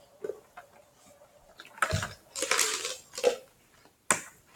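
Ice cubes clattering and rattling in a cup as it is tipped to shake ice out, with a few knocks and a sharp click near the end.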